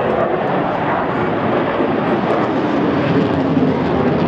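Engine noise from a display aircraft flying overhead, loud and steady, with a slowly shifting pitch.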